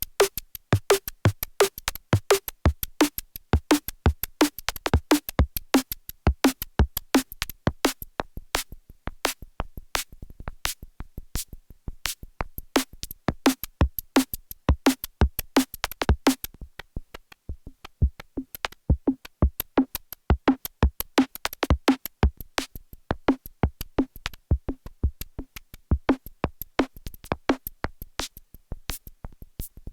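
Arturia MiniFreak synthesizer playing a preset: a fast sequenced rhythm of sharp, clicky drum-machine-like hits with short pitched notes, starting abruptly at the opening.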